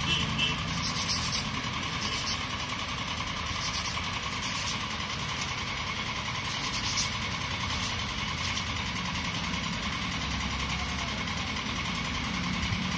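Small piece of foam rubbed against coarse sandpaper in short rasping strokes, coming irregularly about once a second, over a steady low background hum.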